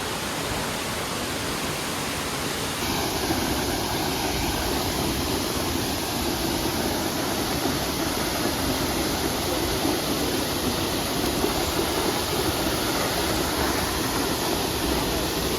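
Waterfall pouring, a steady rushing roar of falling water that gets a little louder and fuller about three seconds in.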